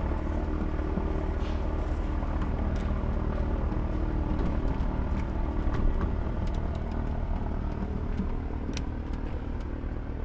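An engine running steadily at idle, with a few light clicks over it.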